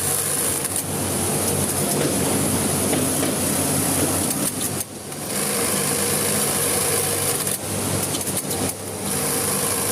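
Electric sewing machine running steadily as clothes are stitched, stopping briefly about halfway through and again near the end.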